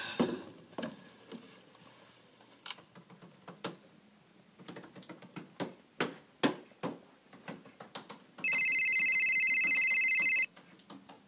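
Scattered clicks of typing on a laptop keyboard, then about eight and a half seconds in a telephone rings: a loud electronic trilling ring lasting about two seconds that cuts off abruptly.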